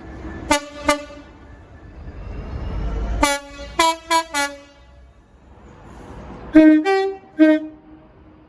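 Train horns in a series of short toots: two quick blasts near the start, four short blasts around the middle after a low rumble builds up, and three blasts near the end that step between a low and a high note, the two-tone sound of British train horns.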